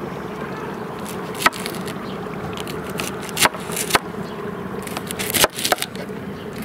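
A large kitchen knife chopping green garlic stalks directly on a stone countertop: sharp, separate knocks, one about a second and a half in, two more a little past three seconds, and a quick cluster near the end. A steady low hum runs underneath.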